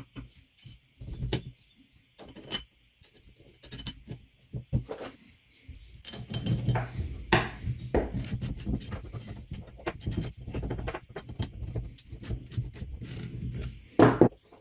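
Hand work on an antique hand-cranked grinder: irregular scraping, rubbing and knocks, sparse at first, then denser and louder from about six seconds in, with a sharp knock near the end.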